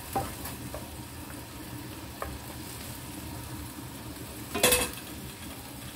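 Pork ribs in broth simmering in a frying pan, a steady sizzle, with a wooden spatula stirring against the pan at the start and a brief clatter about four and a half seconds in.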